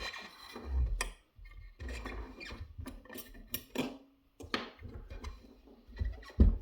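Steel lock pick and tension wrench scraping and clicking inside a pin-tumbler lock cylinder with serrated pins, in irregular short clicks and rasps, with a few dull handling knocks.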